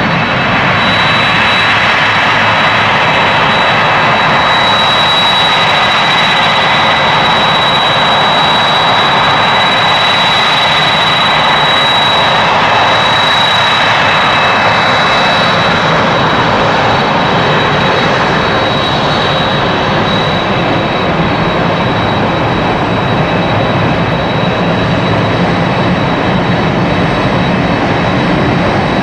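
A Boeing 767's twin General Electric CF6-80C2 turbofans running at taxi power as the airliner rolls past: a steady loud jet rush with a high whistling tone over it.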